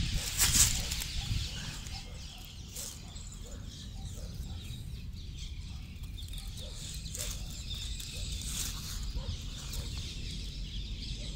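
Hands rustling dead leaves and soil while placing a newt by a log, loudest in the first second or so. After that a low steady rumble continues, with faint short animal calls repeating every half second or so.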